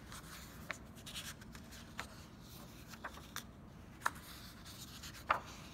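Sketchbook pages being handled and turned: faint paper rustling with several short, sharp ticks.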